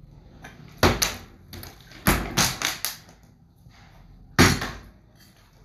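A partly filled plastic bottle tossed in bottle flips, hitting a glass tabletop and bouncing with sharp knocks. There are two knocks about a second in, a quick run of them from about two to three seconds in, and a single loud one near four and a half seconds in. The flips fail and the bottle falls over rather than landing upright.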